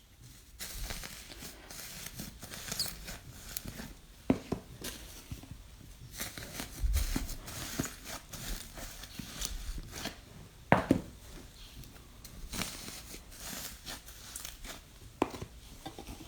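Slime being pressed and stretched by hand: irregular crackling and crinkling, broken by several sharp clicks or pops.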